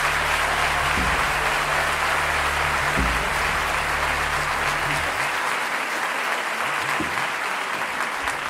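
Audience applauding steadily, with a low steady drone underneath that fades out about five seconds in.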